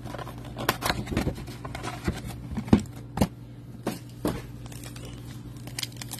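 Hands handling a cardboard trading-card hobby box and the wrapped pack inside it, making a string of light knocks, taps and rustles, loudest in the middle, over a steady low hum.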